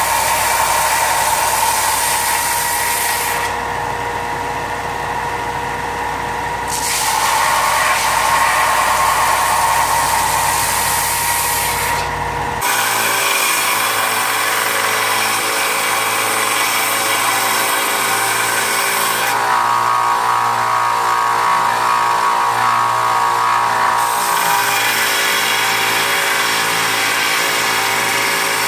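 Electric belt grinders grinding the bevels of a Damascus steel blade: a steady hiss of steel on the abrasive belt over the motor's hum. The hiss drops out twice for a few seconds while the motor keeps running, and about halfway through the sound changes to a smaller belt-and-disc grinder with a more even whine.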